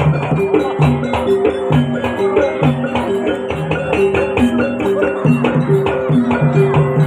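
Javanese jaranan accompaniment: a gamelan-style ensemble playing a fast, repeating pattern of struck tuned notes over steady drumming.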